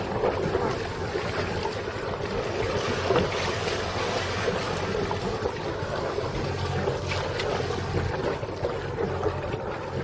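Inflatable boat's outboard motor running with a steady low hum under a constant rush of wind and water.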